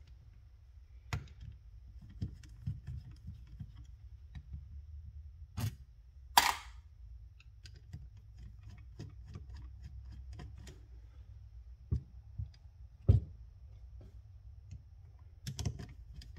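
A screwdriver working screws out of the carburetor of a 2.3 Ford OMC Cobra boat motor: scattered small ticks and clicks of metal, with a handful of sharper knocks.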